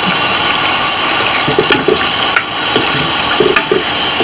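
Calamarata pasta in pumpkin cream bubbling and sizzling in a frying pan over a high flame, with a wooden spoon stirring through it.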